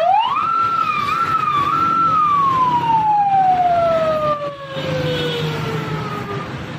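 Police vehicle siren sounding one wail: the pitch rises quickly at the start, holds high with a couple of brief dips, then falls slowly over about four seconds and fades out near the end.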